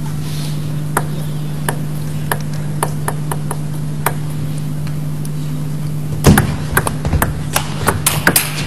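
Table tennis rally: the celluloid ball clicks sharply off bats and table at uneven intervals. About six seconds in, a burst of louder clapping from the crowd breaks out.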